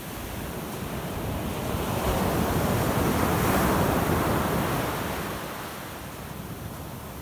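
Ocean surf: a wave breaks and its foam rushes up the beach, the wash swelling to a peak about halfway through and then fading away.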